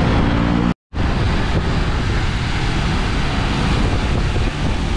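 Steady wind buffeting the microphone over a low rumble of road traffic, heard while riding along a busy highway. The sound drops out completely for a split second just under a second in.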